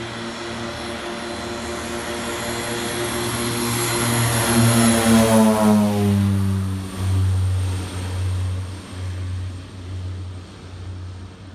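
De Havilland Canada DHC-6 Twin Otter's two turboprops at takeoff power. The propeller drone grows louder as the aircraft rolls up and lifts off close by, drops in pitch as it passes about five seconds in, then fades with a pulsing beat as it climbs away.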